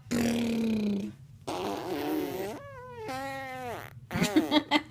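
A baby blowing raspberries with her lips: two sputtering, buzzy stretches, then a short high squeal from her voice that falls in pitch. A quick run of rhythmic mouth pulses starts near the end.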